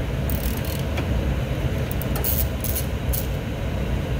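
Socket ratchet wrench clicking in short bursts as a bolt on the Zamboni's blade-bar coupling is turned, over a steady low machinery rumble.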